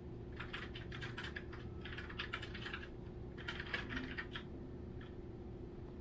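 Rapid light clicking in three runs of about a second each, like typing on a keyboard, with one stray click near the end, over a faint steady hum.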